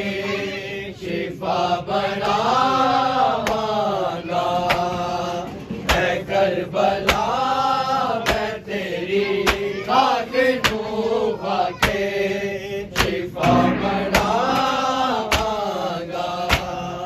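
Voices chanting a noha, a Shia mourning lament in Punjabi/Urdu, with the melody rising and falling. A steady beat of sharp slaps runs under it from a few seconds in, the sound of matam (chest-beating) keeping time.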